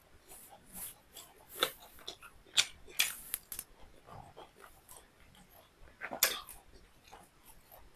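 Close-miked eating sounds of a person chewing beef liver and rice: scattered mouth clicks and smacks, with a few sharper clicks, the loudest around the middle and again near three-quarters of the way through.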